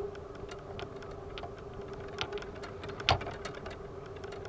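Golf clubs clicking and rattling against each other in a golf bag on a moving golf cart, over a steady whine from the cart, with one louder knock about three seconds in.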